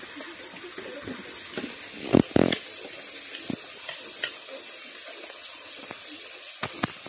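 Steady rush of flowing stream water. Two sharp knocks about two seconds in and a few lighter clicks near the end.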